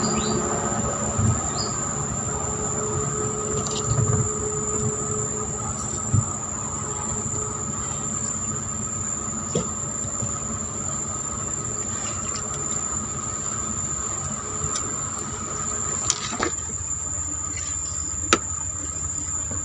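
Insects chirring in a steady, unbroken drone with a high, even whine, and a few light clicks or knocks scattered through it.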